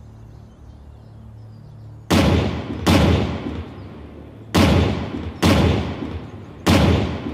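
Artillery field guns firing a ceremonial salute: five sharp blasts, in quick pairs about a second apart, each trailing off in a long echo.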